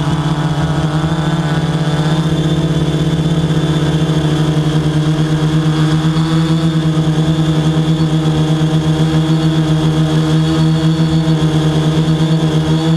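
Quadcopter drone's motors and propellers running steadily while it hovers, a loud hum with a rapid pulsing beat.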